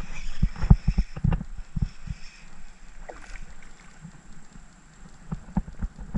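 Handling noise of fishing from a plastic kayak: a spinning reel being cranked, with a run of sharp knocks and low thumps in the first two seconds, a quieter stretch, then a few more knocks near the end as the fish is lifted out of the water.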